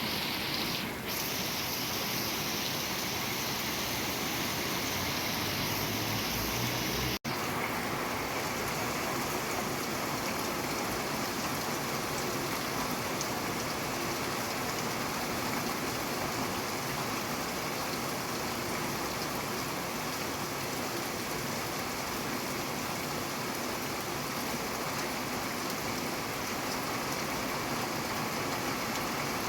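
Steady rain falling, an even hiss with no distinct drops standing out. About seven seconds in there is a momentary gap, after which the hiss sounds slightly different.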